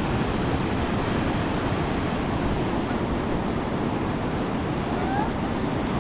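Sea surf breaking and washing up a sandy beach: a steady, even rush of waves.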